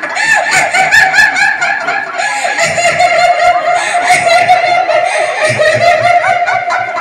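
Loud, rapid high-pitched laughter in quick repeated bursts, with a steady held tone running under it from about two and a half seconds in.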